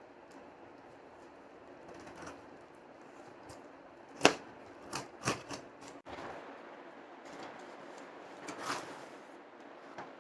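Packaging being handled and opened by hand: rustling, a sharp snap about four seconds in, a few quicker clacks just after, and more rustling near the end.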